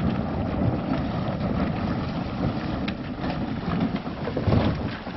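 Wind and water noise aboard a small fibreglass river-crossing boat on the water: a steady rushing haze with a few sharp knocks.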